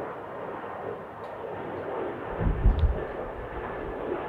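Jet noise from an Airbus A220's Pratt & Whitney PW1500G geared turbofans as the airliner climbs out after takeoff, a steady rushing roar. About two and a half seconds in, a brief burst of deep low rumble is the loudest moment.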